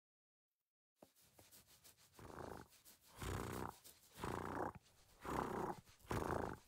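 Cat-like purring from a contented dog having its forehead scratched: a rhythmic rumble that swells and fades about once a second, starting about two seconds in.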